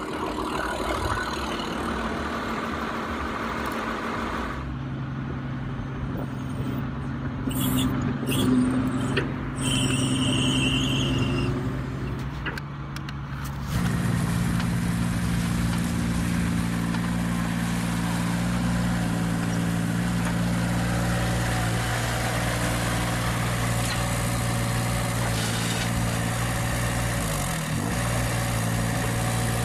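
A heavy vehicle's engine running steadily at a low, even pitch. The pitch steps to a new level about four and a half seconds in and again about fourteen seconds in.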